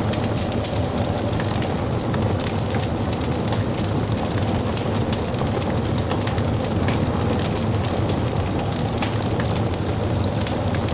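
Wood fire burning: a steady low rumble with many small crackles and pops scattered through it.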